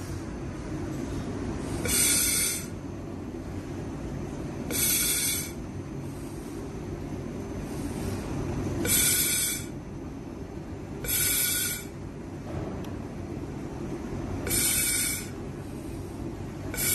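Stored-energy (capacitor-discharge) welding machine cycling: a short hiss, about two-thirds of a second long, repeats six times at intervals of two to four seconds over a steady low machine hum.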